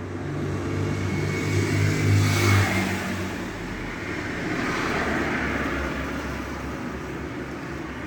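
A motor vehicle's engine running nearby, swelling to a peak about two to three seconds in and then carrying on as a lower drone.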